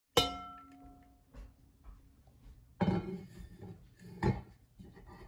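The lid of a Crofton enameled cast-iron Dutch oven clinks against the pot as it is lifted, with a brief ringing tone that fades over about a second. Two more knocks follow, near three and four seconds in.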